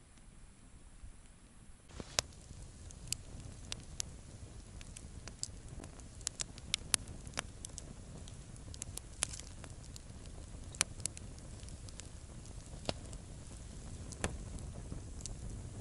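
Wood campfire crackling, with irregular sharp snaps and pops over a low rumble. The snapping starts about two seconds in.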